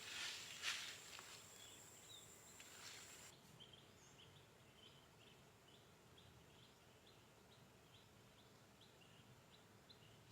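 Faint jungle ambience: a small animal repeats short, high chirps evenly, about two a second. In the first three seconds a few brief swishes of noise sit over it, then stop.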